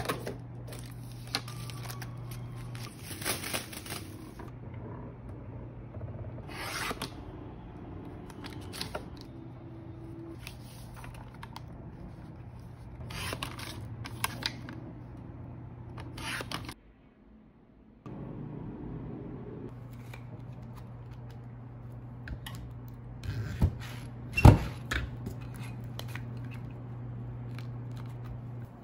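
A sliding paper trimmer's blade is drawn through printed card sheets in a series of short scraping cuts, with paper shuffling between strokes, over a steady low hum. Near the end come a few sharp clicks and one loud knock as cards are cut in a lever press.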